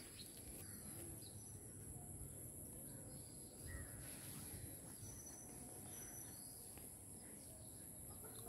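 Faint rural outdoor ambience: insects making a steady, high-pitched drone, with a few brief faint bird chirps about five to six seconds in and a low rumble underneath.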